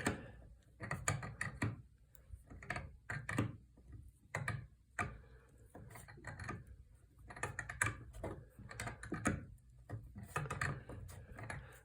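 Old solid door stop being unscrewed from the baseboard with channel-lock pliers, turned anti-clockwise in short repeated twists. Each twist gives a cluster of short clicks and scrapes as the pliers grip and the threaded stud turns in the wood.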